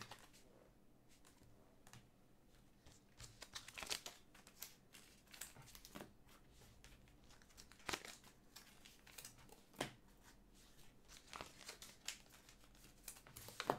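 Faint rustling and small clicks of glossy Panini Prizm trading cards being slid and flipped through by hand, with a few sharper ticks, the loudest about four, eight and ten seconds in.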